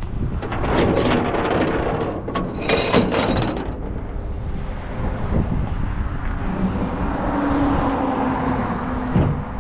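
Tow chains and hooks clinking and rattling against the steel deck of a rollback tow truck, heaviest in a burst about three seconds in. Steady vehicle and road noise from passing traffic runs underneath.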